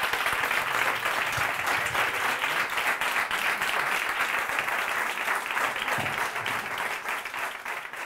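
Audience applauding, dense clapping that thins out and fades near the end.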